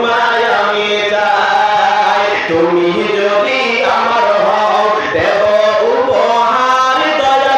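A man's voice chanting in a drawn-out, melodic sermon style, holding long notes that rise and fall.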